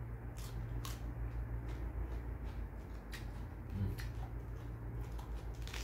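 Crisp lettuce leaves being chewed and handled, giving a few short, sharp crunches and crackles over a steady low hum.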